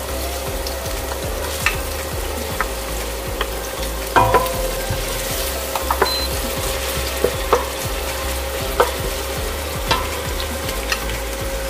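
Chopped red onion sizzling in hot oil in a stainless steel pot, stirred with a wooden spatula that knocks against the pot now and then. This is the first stage of the sauté, the onion going in before the garlic.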